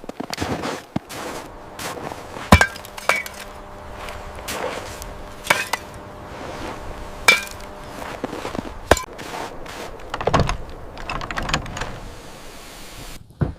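A series of sharp clinking knocks, about five, a second or two apart, each with a short ring.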